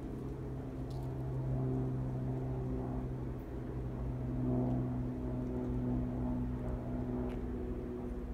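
Diesel locomotive engine droning steadily, a low hum with a few steady overtones that gets a little louder a couple of seconds in.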